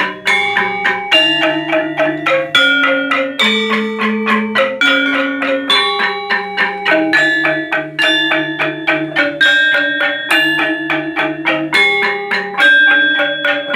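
Balinese gamelan gambang ensemble playing a melody. Mallets strike the wooden-keyed gambang and the bronze-keyed saron in a steady stream of ringing notes, about three a second.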